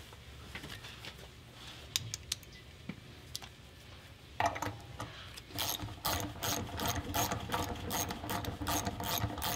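Hand ratchet clicking as it drives a waxed nylon lock nut onto a bolt: a few faint handling clicks, then from about halfway a steady run of ratchet clicks, about three a second. The nut is threading on smoothly, without galling.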